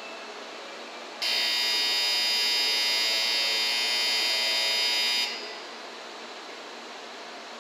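Shinkansen platform departure-signal buzzer sounding one steady, loud buzz for about four seconds, starting about a second in and cutting off. It is the signal to the conductor to close the doors and depart.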